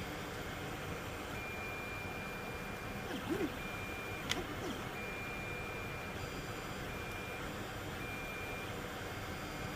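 Creality CR-10 3D printer printing: a steady fan hiss with a high stepper-motor whine that comes and goes in short stretches as the print head moves, a couple of brief rising-and-falling whirs about three and a half seconds in, and a single click just after.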